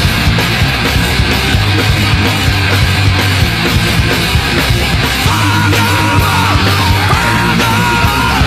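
Loud rock music with distorted, heavy-metal-like backing. A sung or shouted vocal line with long held notes comes in about five seconds in.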